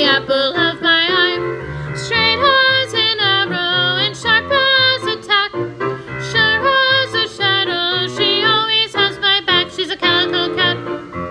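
Singing with vibrato over a steady instrumental accompaniment with low bass notes: a choral song.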